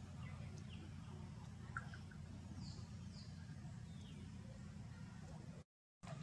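Faint outdoor ambience: a steady low rumble with a few faint, high, falling chirps about two and a half seconds in. Near the end it cuts out to silence for a moment.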